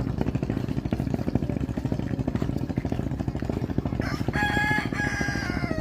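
A rooster crowing once about four seconds in, a drawn-out call in two parts, over the low pulsing of a nearby engine running.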